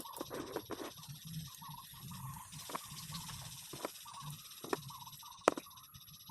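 Small neodymium magnetic balls clicking sharply together, about six distinct clicks, the loudest near the end. Behind them, birds repeat a short chirping call over a steady hiss.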